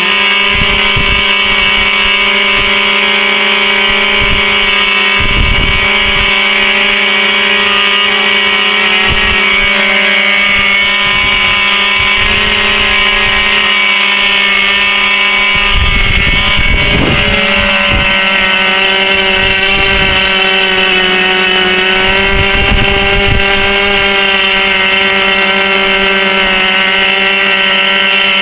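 Two model aircraft glow engines running together at a steady, constant speed while being run in. A few short low rumbles sit under the engine note.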